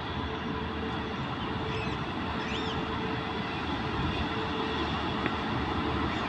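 WAP-7 electric locomotive hauling a passenger express toward the listener: a steady rumble with a steady hum, growing slowly louder as it nears.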